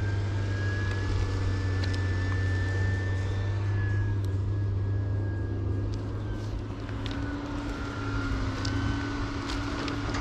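An engine running steadily, a low hum with a thin high whine above it that dips slightly in pitch partway through.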